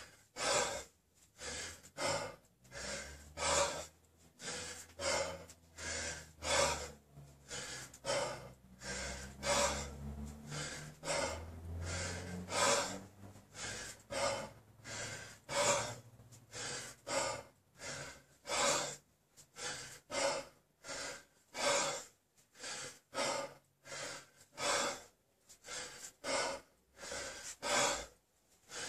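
A man breathing hard and forcefully under sustained exertion, a quick breath in or out about every half second to second in a steady rhythm.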